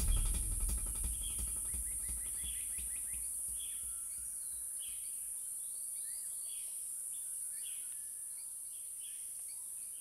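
Tropical rainforest ambience: a steady high insect drone with short, downward-sliding bird chirps repeating about once a second. A low swell fades out over the first second or two.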